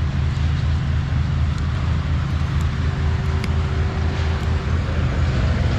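A heavy work machine's engine running steadily with a low, even hum. A faint steady whine runs over it and stops about five seconds in.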